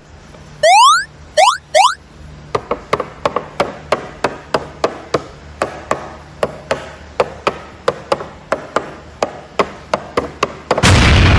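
Plastic action figure being handled and posed: a long run of sharp plastic clicks and taps, about three a second. A few quick rising electronic sweeps open it, and a loud noisy burst like an explosion effect comes in near the end.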